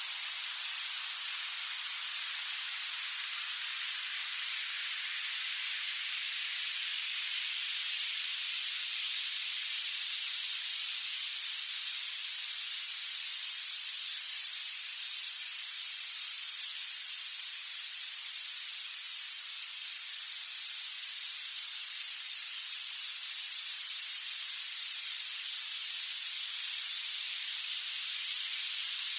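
Synthesized violet noise: a steady, even hiss with no low end, growing brighter toward the highest pitches.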